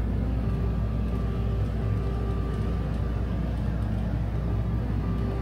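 Steady low rumble and hum of room noise, even throughout, with no distinct events.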